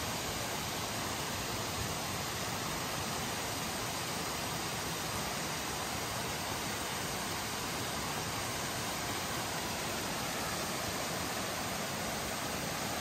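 Steady, unbroken rush of a fast-flowing mountain stream.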